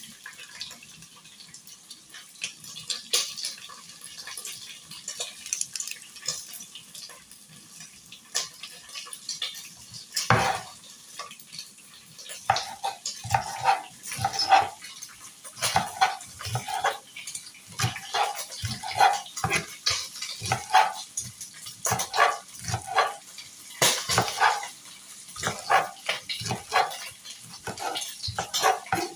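Knife chopping spring onions on a cutting board: sharp knocks, sparse at first, then a steady run of about two a second from about twelve seconds in.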